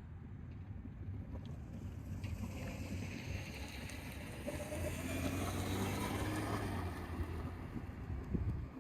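A vehicle passing by: its noise swells over a few seconds, falls slightly in pitch as it goes past, and fades away near the end, over a steady low hum.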